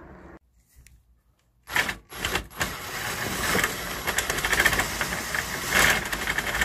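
Cordless drill with a socket on an extension, spinning a nut off a bolt: two short bursts, then a steady run of about four seconds that stops near the end.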